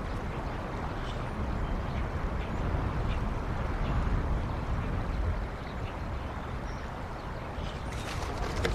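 Steady wind noise rumbling on an outdoor microphone, with faint scattered high ticks.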